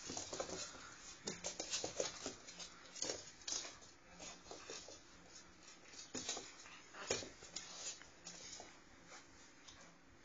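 Black Labrador puppy's paws and claws clicking and pattering on a wooden floor: irregular light taps and knocks, busiest in the first few seconds, with one sharper knock later on.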